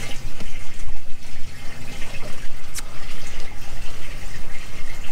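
Water splashing and gurgling steadily, with one sharp click about three seconds in.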